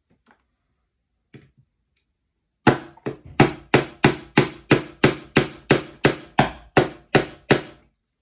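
Small hammer tapping a track pin through model railway track into the baseboard: about fifteen quick, even strikes, roughly three a second, starting a little over two seconds in after a couple of light clicks.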